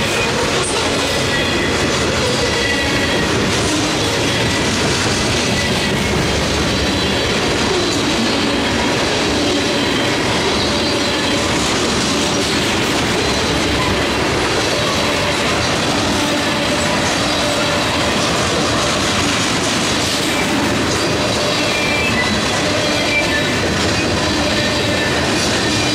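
Freight cars of a CSX mixed manifest train, tank cars and boxcars, rolling steadily past: a continuous rumble and clatter of steel wheels on the rails, with thin high squeals from the wheels now and then.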